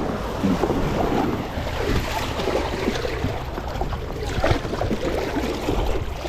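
Sea water washing and splashing at the shoreline, with wind buffeting the microphone.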